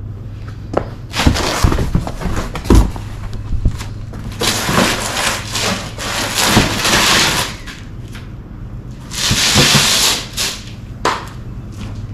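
Sheets of cardboard being slid and laid out on a concrete floor, scraping and rustling in three spells, with several thumps as they are dropped and handled. A steady low hum runs underneath.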